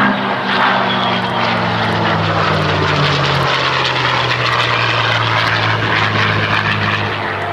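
A P-51 Mustang's V-12 piston engine and propeller and an F-16 fighter flying past together in formation: a loud steady drone whose pitch slides down as they go by, over a wide rushing noise.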